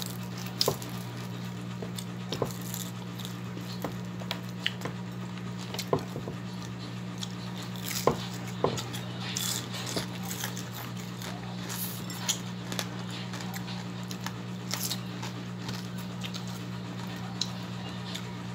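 Close-up eating sounds of a person eating fried fish by hand: soft chewing, lip smacks and scattered small clicks as fingers pick the fish apart. A steady low hum runs underneath.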